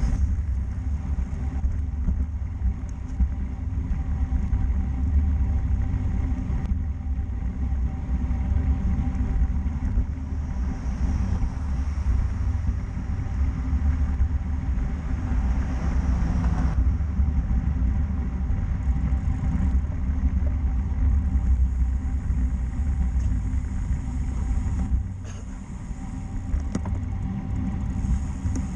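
Steady low rumble of wind buffeting the microphone of a camera carried on a moving bicycle, mixed with road noise. It eases briefly about 25 seconds in.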